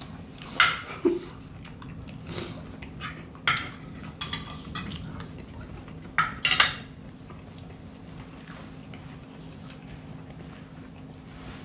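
Metal spoons and forks clinking and scraping on ceramic plates while eating: several sharp clinks in the first seven seconds, then quieter, over a low steady hum.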